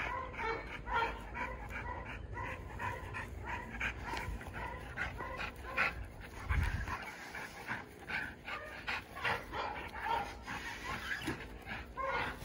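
Two excited pit bulls whining and panting, with short high yips again and again.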